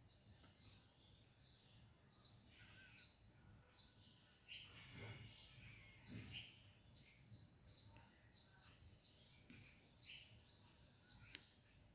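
Near silence with a bird chirping faintly over and over, about two short chirps a second, and a few faint knocks and scrapes around the middle.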